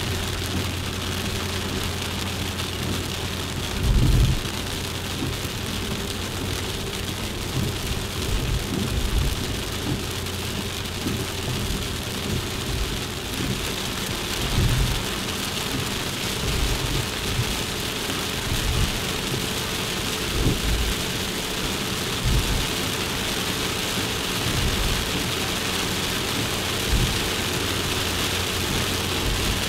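Suzuki Jimny on the road, heard from on board: a steady engine and road drone with an even hiss over it. Irregular low thumps come through it, the loudest about four seconds in.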